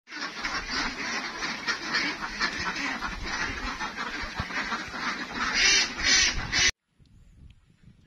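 A large flock of domestic ducks quacking together in a dense, overlapping chorus, which cuts off abruptly near the end.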